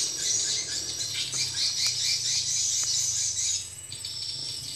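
Outdoor insect chorus with a bird chirping a quick run of short notes over it. The loud high insect buzz cuts off suddenly about three and a half seconds in, leaving a fainter steady high drone.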